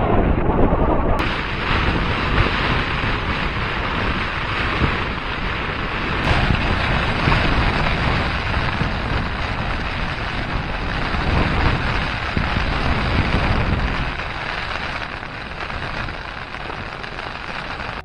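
Steady rain falling on a tarp overhead, with wind gusting on the microphone. It gets quieter over the last few seconds.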